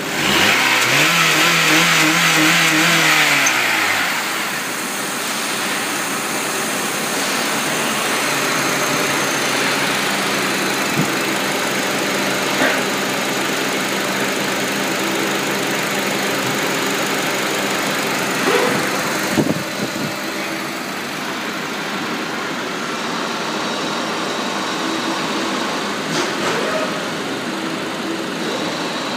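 Honda K20A 2.0-litre i-VTEC DOHC four-cylinder petrol engine running. It is revved once at the start, held for about three seconds, then drops back to a steady idle. A few light knocks come through later on.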